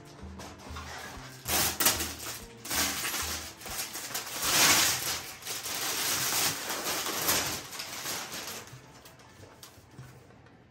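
Plastic wrap and a cardboard sleeve crinkling and rustling as they are pulled off a rolled yoga mat, in several bursts, then fading near the end.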